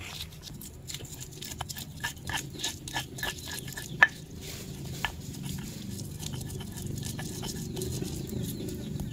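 Candlenuts, shallots and red chilies being crushed in a stone mortar with a stone pestle (cobek and ulekan): a run of sharp knocks and crunches, the loudest about four seconds in, giving way to a steadier grinding rasp.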